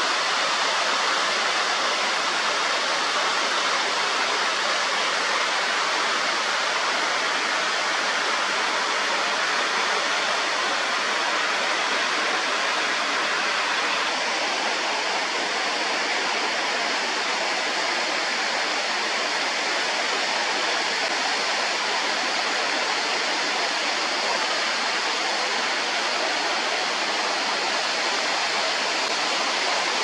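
Steady, unbroken rush of a tall mountain waterfall spilling down a rock face in long cascades; its tone shifts slightly about halfway through.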